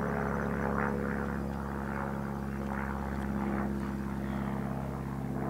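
Steady mechanical drone: a low hum of several constant tones under a rushing noise that swells and fades slightly, without any change in pitch.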